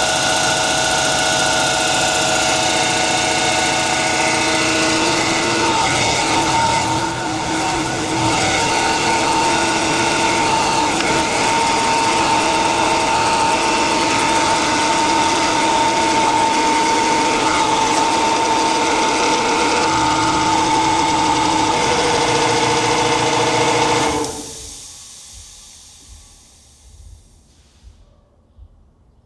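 Belt-driven air compressor with a new Campbell Hausfeld pump running steadily under load as it fills the tank, then shutting off about 24 seconds in and winding down, the tank reaching its cut-out pressure.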